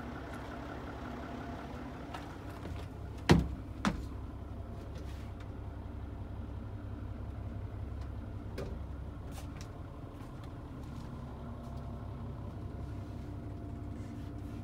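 Mitsubishi Aero Midi bus's 6D15 turbo diesel engine idling steadily, with two sharp thumps a little over three seconds in.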